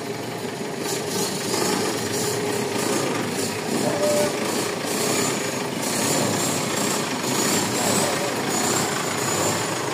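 Diesel pickup engine running steadily at idle, with a constant rattling clatter, while the truck is manoeuvred.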